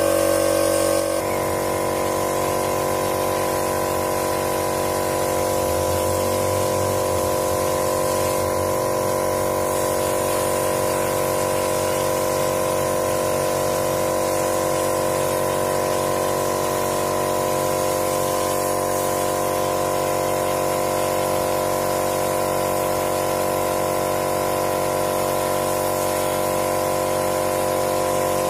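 Air compressor running steadily with a constant hum, driving a hopper spray gun that blows travertine texture plaster onto a wall with a steady hiss of air.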